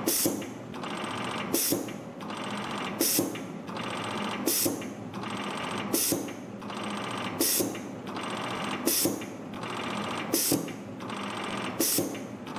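A YHM MF-603 CNC multi-forming machine running production cycles, forming springs from 0.1 mm wire. A steady whirring is broken by a short, sharp, high burst about every one and a half seconds, one burst for each spring, nine times in all.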